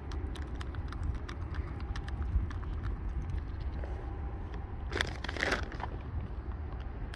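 Canada goose pecking pellets out of a bare hand, its bill making quick irregular clicking, crunching taps over a steady low rumble. A short, louder burst of noise comes about five seconds in.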